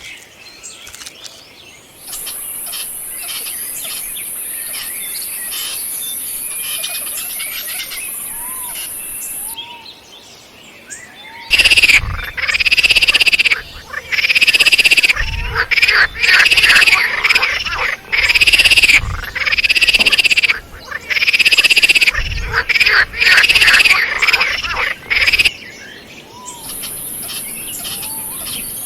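Squirrel calling: about ten loud, repeated arching call notes, each under a second long, over a steady high insect-like buzz. Low thuds are heard between the calls.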